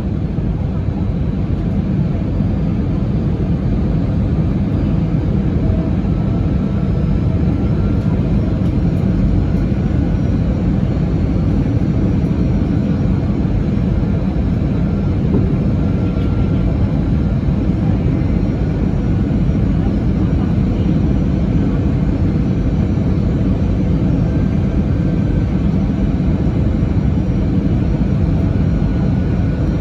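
Fixed-wing aircraft during landing: a loud, steady low rumble with a faint high whine running through it, with no sudden change.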